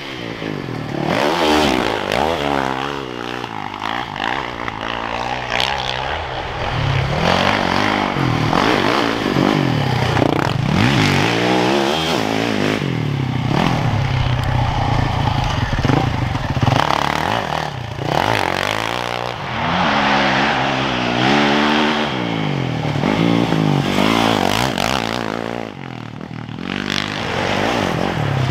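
Yamaha YZ450FX dirt bike's single-cylinder four-stroke engine revving hard and easing off again and again, its pitch rising and falling repeatedly as it is ridden.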